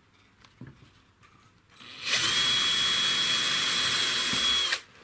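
Cordless drill running steadily into a wooden frame for about two and a half seconds, starting about two seconds in with a steady whine and stopping abruptly, after a few faint taps.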